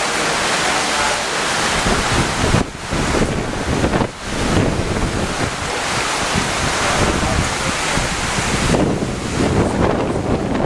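Strong, gusty hurricane wind buffeting the microphone in a dense, continuous rush of noise with heavy low rumble. It briefly eases twice, a few seconds in.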